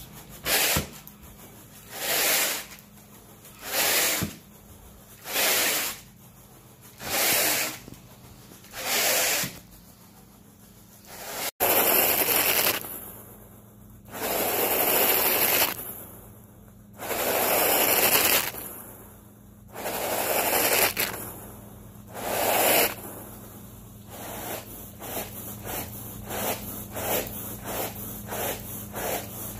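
Carpet grooming rake dragged back and forth through carpet pile, working in the cleaning agent, with a scratchy rustle on each stroke. The strokes come about one every second and a half, then after a cut longer strokes, and from about three-quarters of the way through quick short strokes, two to three a second. A low steady hum sits underneath.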